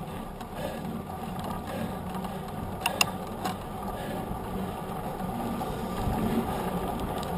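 Mountain bike rolling fast on asphalt, heard from a camera mounted by the front wheel: the knobby tyre gives a steady rumbling hum, with a couple of sharp rattling clicks about three seconds in.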